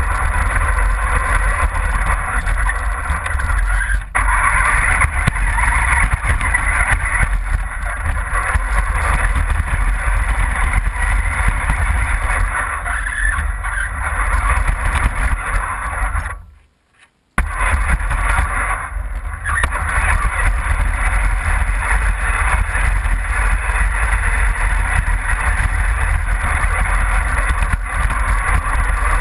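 Steady rumble and hiss of an RC car driving over snow, picked up by a camera mounted on its body. About halfway through, the sound cuts out almost completely for about a second, then comes back.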